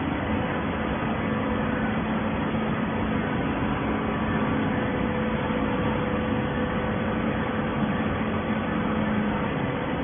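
Horizontal hydraulic baler running: a steady mechanical hum from its hydraulic power unit over even machine noise.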